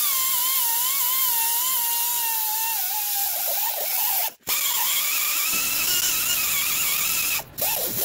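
A die grinder with a sanding drum is whining at high speed, its pitch wavering and sagging as it is pressed against the rusty steering-knuckle bearing bore to sand off rust and scale. It stops briefly twice, about four and a half and seven and a half seconds in, then starts again.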